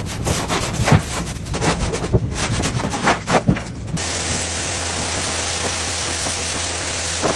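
Irregular scrubbing and rubbing strokes on a car's surface, several a second. About four seconds in, this cuts abruptly to a steady hiss of water spraying, as from a pressure washer.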